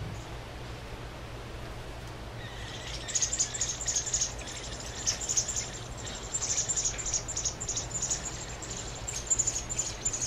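American robin nestlings begging, a rapid run of short, very high-pitched peeps that starts about three seconds in and goes on as the adult arrives to feed them.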